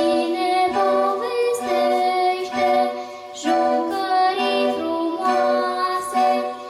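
A girl singing a song into a microphone while accompanying herself on a Roland electronic keyboard.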